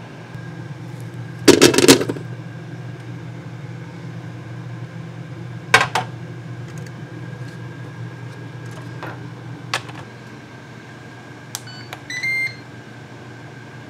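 Baby carrots clattering into the metal basket of a Ninja Foodi pressure cooker, with a sharp knock a few seconds later as the pot is handled. Near the end a few button clicks and a short electronic beep from the Foodi's control panel, over a steady low hum.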